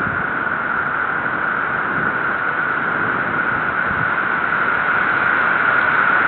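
Steady rushing hiss of a thunderstorm picked up by a nest camera's microphone, growing slightly louder toward the end.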